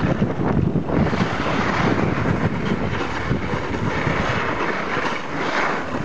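Wind buffeting the microphone while skiing downhill, a steady rumbling rush, with the hiss of skis scraping over hard, wind-blown snow that grows stronger about a second in.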